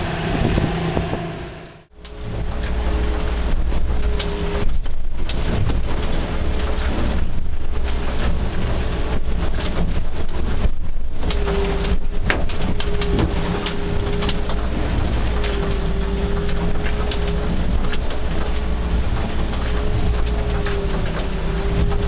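Boat under way in rough seas: a Yamaha 175 outboard running at speed over its churning wake, then, after a brief break about two seconds in, the engine droning with a steady, slightly wavering hum inside the cabin over a heavy low rumble of the hull running through breaking waves.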